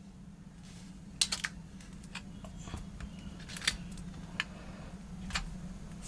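Scattered small plastic-and-metal clicks, about six at irregular intervals, as the iPhone 6s Plus screen assembly is pressed around its edges and snaps into the phone's frame. A faint steady low hum sits beneath.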